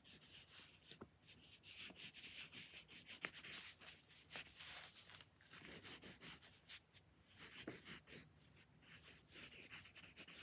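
Faint pencil writing on paper: a wooden pencil's graphite scratching in short, irregular strokes with small ticks and brief pauses between words.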